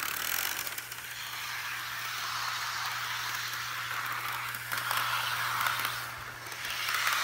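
HO-scale model train running on sectional track: a steady whirring hiss from its small electric motor and wheels, with a few faint clicks and a steady low hum underneath.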